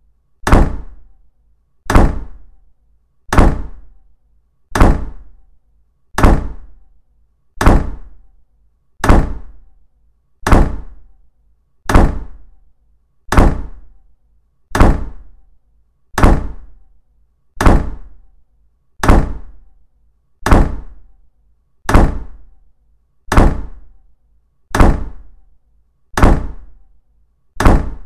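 A deep thud repeating at a perfectly even pace, about one every second and a half, each one dying away before the next.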